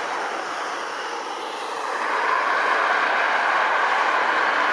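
Airbus A330-200 twin jet engines at takeoff thrust during the takeoff roll, heard from afar as a steady rushing noise. The noise swells about two seconds in.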